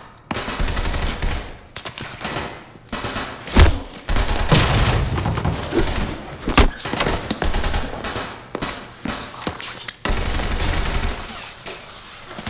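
Gunfire sound effects: long bursts of rapid automatic fire, broken by a short lull, with a few louder single shots standing out.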